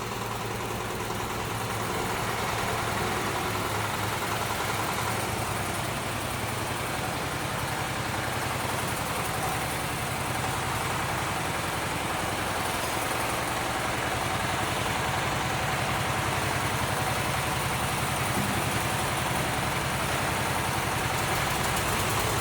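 Small engine of a crawler micro cultivator running steadily at a constant speed, with a fast, even firing pulse.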